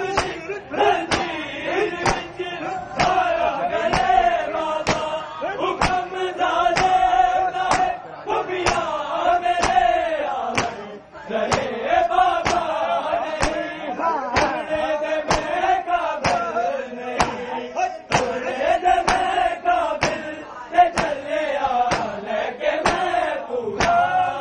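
A group of men chanting a noha, a Shia mourning lament, in unison, with sharp slaps of matam chest-beating keeping a steady beat of about three strikes every two seconds.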